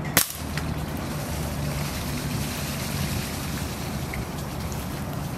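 A single sharp air rifle shot about a quarter of a second in, fired at an iguana. Under it runs a steady low motor drone.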